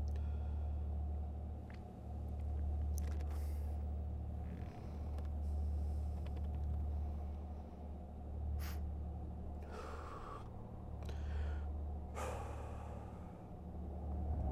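A man crying quietly to himself, with a handful of short, sharp breaths, over the steady low drone of a moving car heard from inside the cabin.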